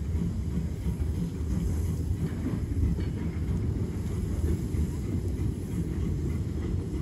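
Peckett 0-4-0ST saddle tank steam locomotive shunting a flat wagon at low speed, heard as a steady low rumble.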